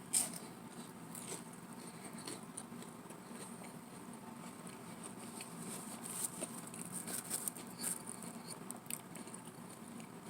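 Biting into and chewing a handheld chicken pot pie's flaky, crispy pastry crust: faint, irregular crunching and crackling, with a sharper crack just after the start.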